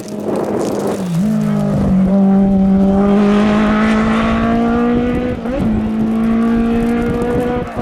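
Hill-climb race car engine held at high revs under hard acceleration. The note climbs slowly in each gear, with quick upshifts about a second in and again about five and a half seconds in.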